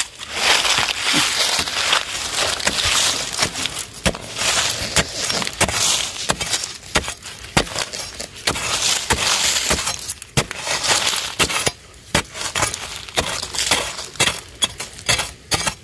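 Metal blade of a long-handled digging tool chopping and scraping into dry, crumbly soil among dry leaves: a rapid, irregular run of gritty strikes, several a second.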